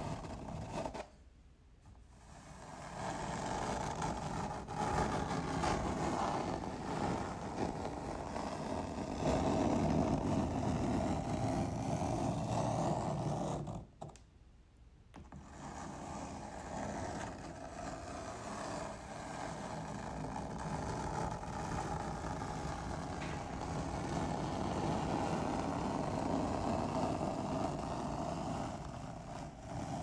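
Fingernails scraping across a chalkboard in long grating strokes. It breaks off twice for a second or two, about a second in and again about halfway through.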